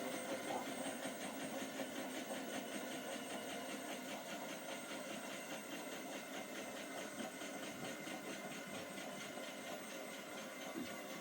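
Hotpoint NSWM 843C inverter-motor washing machine running with its drum turning: a steady mechanical whirr with a fast, even pulsing, slowly getting a little quieter.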